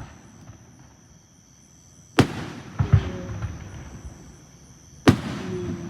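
Aerial fireworks bursting: two loud bangs about three seconds apart, the first followed by a smaller pop, each trailing off in a rumbling echo.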